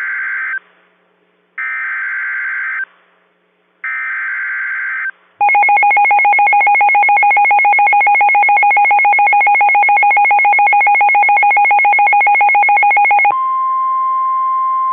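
Emergency Alert System tones: three short bursts of the SAME header's buzzy data screech, then the EAS two-tone attention signal, held for about eight seconds with a fast pulsing beat. Near the end it switches to a single steady tone, the weather-radio alert tone. The sequence marks the start of a new warning.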